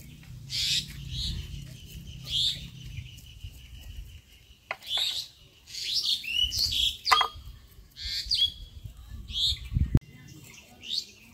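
Small birds chirping and calling repeatedly, in short high chirps and quick glides. A few sharp snaps come in between, the sound of drumstick (moringa) pods being cut with a hand blade, with a duller knock near the end.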